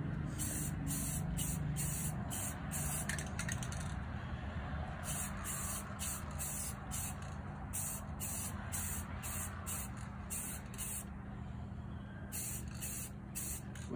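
Rust-Oleum 2X aerosol spray paint can hissing in many short bursts as silver paint is laid on a plastic model car body. There is a break of a few seconds after the first bursts and another just before the last ones, over a steady low rumble.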